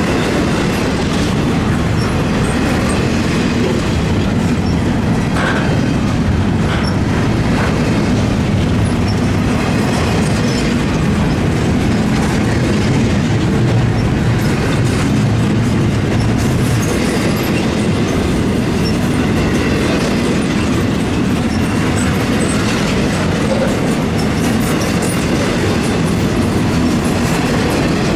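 Freight train cars rolling past, a steady loud rumble of wheels on the rails with clickety-clack over the rail joints.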